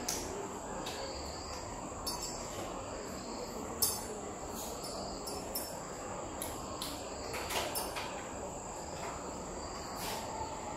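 Quiet room background with a steady high-pitched whine, and a few soft clicks and knocks from a glass pipette and lab glassware being handled.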